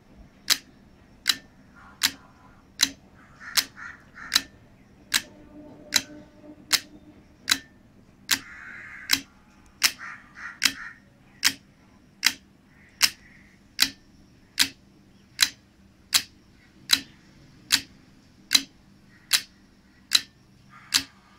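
Electromagnetic relays of a relay-built clock-pulse generator and 2-bit binary counter clicking in a steady rhythm, a little more than one sharp click a second, as the relays switch with each clock pulse.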